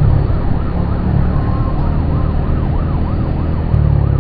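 A vehicle siren yelping, its pitch rising and falling about four times a second, over the steady low running of a motorcycle engine.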